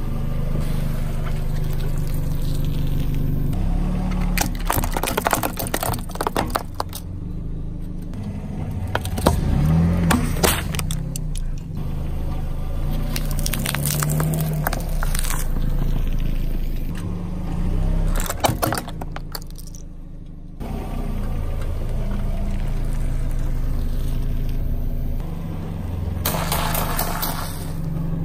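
A car engine idling while a tyre slowly rolls over and crushes small objects, with several bursts of crunching and crackling as they give way.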